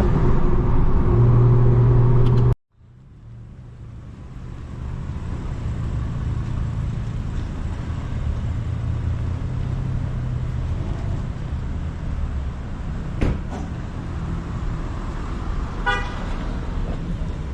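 BMW B58 turbocharged inline-six engine running, a loud steady drone that cuts off abruptly about two and a half seconds in. Engine rumble then builds back up and holds steady, with a short horn-like beep near the end.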